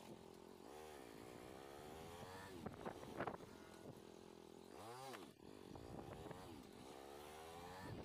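Motorcycle engine running quietly at low speed, its pitch climbing and dropping again several times as the throttle is opened and closed.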